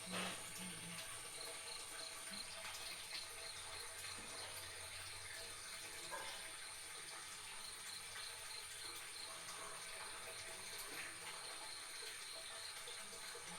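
Faint steady hiss like running water, with a thin high-pitched tone throughout and a small click at the start.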